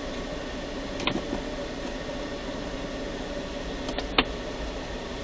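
Steady hum of a stationary car heard from inside the cabin: the idling engine and air-conditioning fan. Two short sharp clicks stand out, one about a second in and a louder one a little after four seconds.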